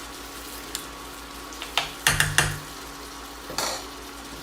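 Green peas and onion frying in oil and butter in a frying pan with a steady sizzle, stirred with a utensil that knocks and scrapes against the pan a few times, most sharply in a quick cluster about two seconds in and again a little later.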